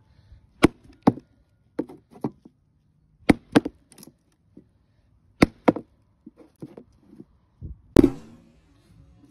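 A homemade axe made from a circular saw blade chopping a stick of kindling on a plywood board. There are repeated sharp chopping blows, several in quick pairs, and the hardest comes about eight seconds in.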